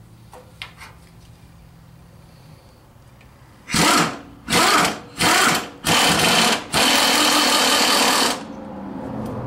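Handheld power tool driving a bolt in five short bursts, the last one the longest, as it runs a transmission mount fastener in.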